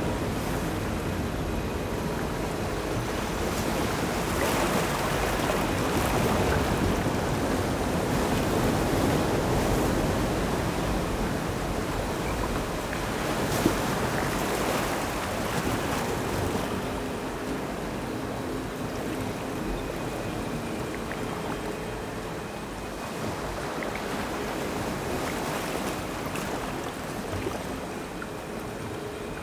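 Ambient electronic noise music: a wash of sound like surf that swells over the first ten seconds and slowly recedes, with faint steady tones held underneath and a single sharp click about halfway through.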